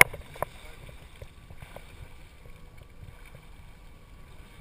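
Small waves lapping and splashing softly against a camera held at the lake surface, with scattered faint splashes.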